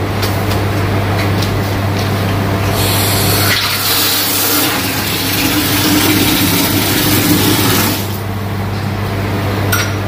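Water gushing from an opened wall tap, starting about three seconds in and stopping shortly before the end, over a steady low hum.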